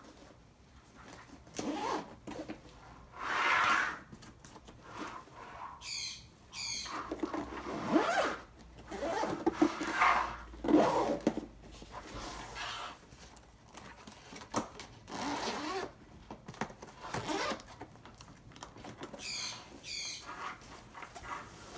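Hands handling a hard-shell laptop backpack: fabric and nylon rustling and scuffing with occasional knocks on the moulded shell. Two quick zipper strokes come about six seconds in and two more near the end.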